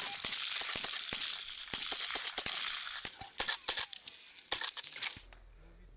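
Kalashnikov-pattern assault rifles firing: irregular single shots and short strings, dense in the first three seconds, then a few separate sharp cracks that thin out near the end.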